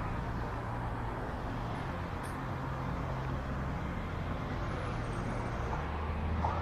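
City road traffic with a motor vehicle's engine running steadily close by: a low, even engine hum over a general wash of street noise.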